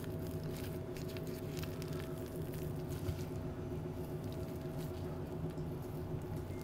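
Faint soft sounds of a boning knife cutting raw beef tenderloin and gloved hands handling the meat on a plastic cutting board, over a steady low hum.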